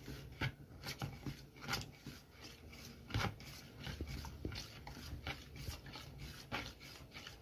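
Metal spoon stirring cornstarch and milk in a plastic bowl, scraping and tapping faintly against the bottom and sides in irregular strokes about every half second: the starch being dissolved so it leaves no lumps.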